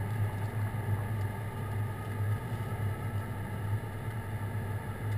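Aircraft engines running steadily, heard from inside the cabin as an even low drone.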